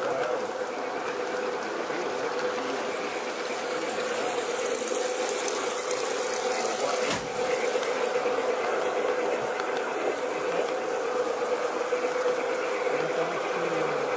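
G-scale model locomotive's electric motor and gears whining steadily as the train runs, heard from a camera riding on the train, with one sharp click about halfway through.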